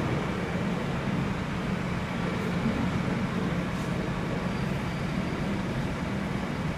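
Steady low mechanical hum under an even hiss of background noise, constant throughout with no breaks or changes.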